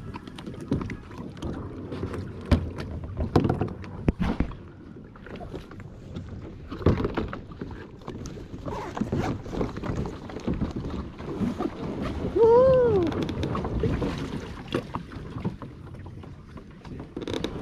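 Plastic sit-on-top kayaks and paddles knocking and scraping as the boats are brought in through shallow water, with irregular hollow knocks, splashing and wading. About two-thirds of the way through, a short rising-and-falling call is the loudest sound.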